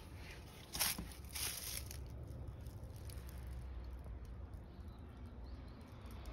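Two brief rustles of dry grass about a second in, then quiet outdoor background with a steady low rumble.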